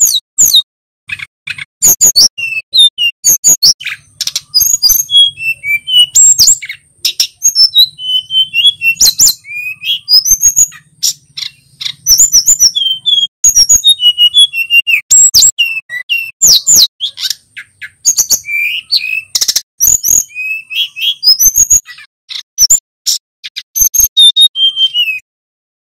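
Male sikatan gunung (mountain flycatcher) singing a loud, fast, varied song of high whistled and chirping notes with many rising and falling glides. The song stops about a second before the end.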